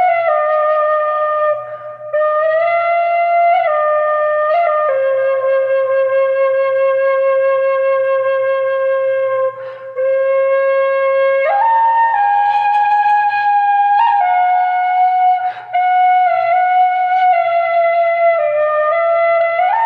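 Solo Irish flute playing a slow melody of long held notes, with short breaks for breath.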